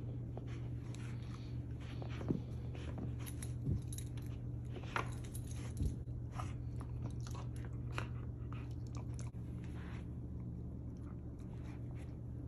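A Goldendoodle gnawing a rawhide-free chicken chew stick: irregular crunches and clicks of teeth on the stick, with a few sharper, louder bites in the first half and quieter chewing near the end.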